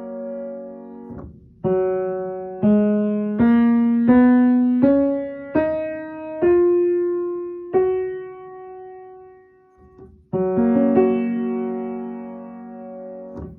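Solo piano playing slow single notes, each struck and left to ring, stepping mostly upward about one a second. After a pause, a chord is struck about ten seconds in and left to ring.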